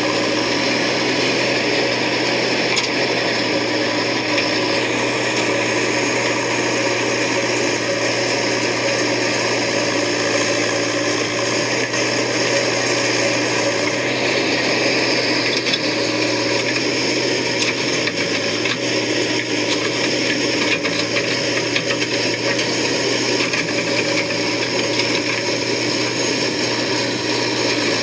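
JCB 3DX backhoe loader's diesel engine running steadily under digging load, with a high steady whine over the engine noise.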